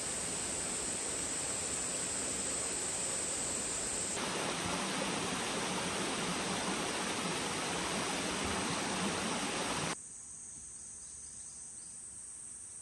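Outdoor forest ambience: a steady rushing noise, like a stream, under a high, steady insect drone. About ten seconds in it drops to a quieter background where the high insect buzz remains.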